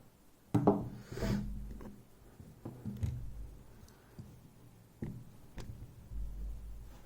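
Scattered clicks and light knocks of small metal tools and the lock cylinder being handled and set down on a workbench, about half a dozen at irregular intervals with a couple of dull low thuds.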